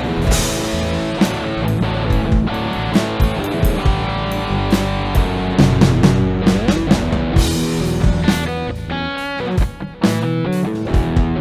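A small band playing an instrumental rock jam: electric guitar lines over electric bass and a drum kit. The band drops out briefly about ten seconds in and comes straight back.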